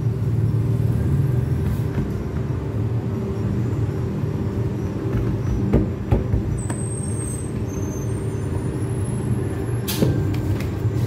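Steady low hum of kitchen machinery with a faint steady tone above it. A few light knocks come about six seconds in, and a sharp click comes near the end.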